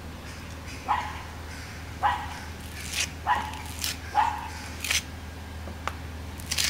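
Broad metal scraper pressing and scraping lightweight bonding plaster into a deep gap in the wall, with brief scrapes against the plaster. Four short, sharp sounds about a second apart are the loudest thing heard.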